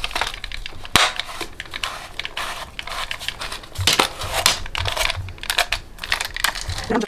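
Close handling of a push-button closed-face fishing reel and its line: irregular rustling and crackling with scattered sharp clicks, one clear click about a second in.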